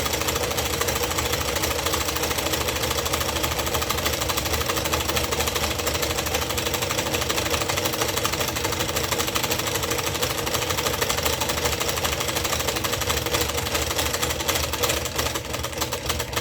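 Old variable-speed scroll saw running, its reciprocating blade drive making a rapid, steady mechanical chatter. The beat grows coarser and less even near the end.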